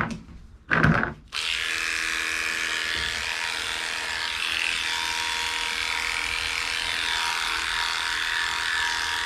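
Cordless Heiniger dog clipper switched on a little over a second in, then running with a steady buzz as it trims the fur on a dog's foot. Two short, louder sounds come just before it starts.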